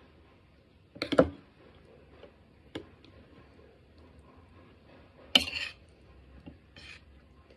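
Kitchen utensils and dishes knocking and clinking: a few separate sharp knocks, a double one about a second in and the loudest about five seconds in.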